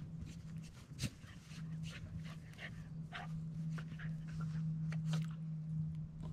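Black Labrador retriever puppy digging and pawing at sand and pine straw: a run of short scratching scuffs, with the puppy panting. A steady low hum runs underneath.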